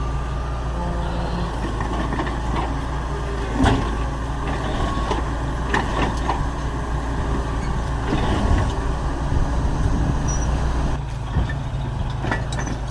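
Diesel engine of heavy earthmoving machinery running steadily under work, with several sharp metallic clanks over the drone.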